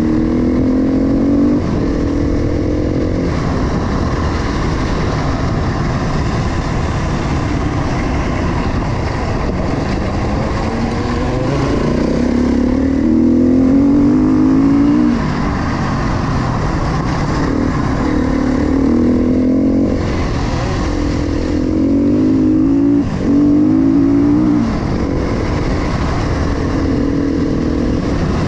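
KTM 350 XC-F single-cylinder four-stroke dirt bike engine under way on a gravel road, revs climbing several times (near the start, around the middle and about two-thirds through) and each time dropping off sharply as the rider shifts or rolls off the throttle, over a steady rush of wind and tyre noise.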